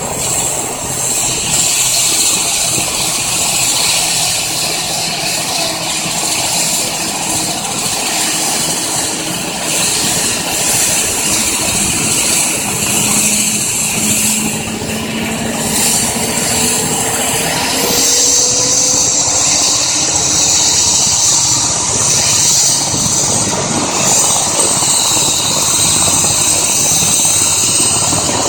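Eurocopter EC145 helicopter's twin turbine engines spooling up during start-up: a steady high turbine whine over a rushing hiss. Several tones slowly rise in pitch around the middle, and a higher whine comes up about two thirds of the way through.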